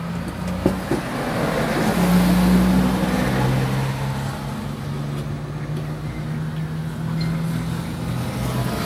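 An engine running steadily with a low hum that steps down in pitch about three and a half seconds in, with two light clicks near the start.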